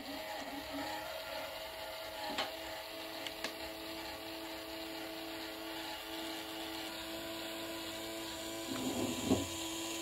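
Small yellow plastic gear motor running steadily with a low hum, swinging the louvre flap of a cardboard mini air conditioner. It gives a couple of light clicks and, near the end, a brief rattle.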